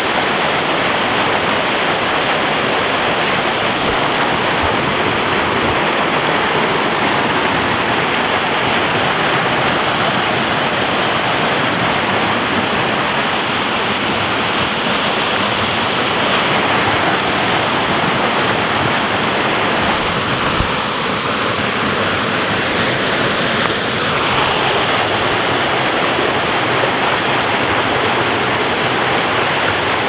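A small waterfall and fast creek tumbling over rocks: a steady, even rush of water.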